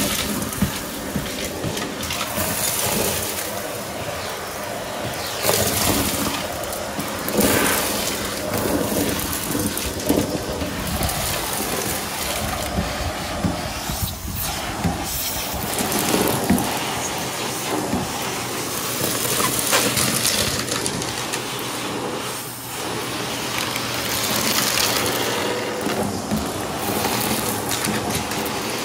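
Shark stick vacuum running on carpet, with many short clicks and rattles as bits of confetti and beads are sucked up through the metal wand.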